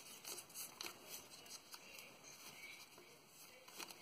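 Faint rustling and a few light clicks of EVA foam strips being handled and braided between the fingers, with one sharper click near the end.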